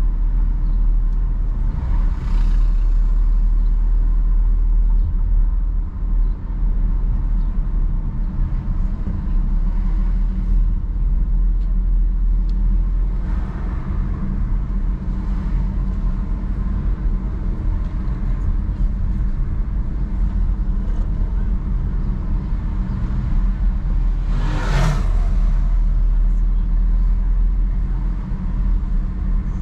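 Car driving slowly along a town street: steady low engine and road rumble. Brief louder passing sounds come at about 2 s, 13 s and 25 s; the one at 25 s is the strongest.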